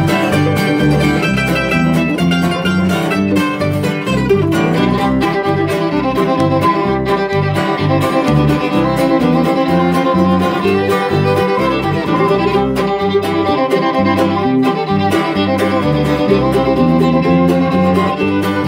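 Bluegrass string band playing an instrumental break between verses: fiddle leading over strummed acoustic guitar and mandolin, with a steady rhythmic pulse underneath.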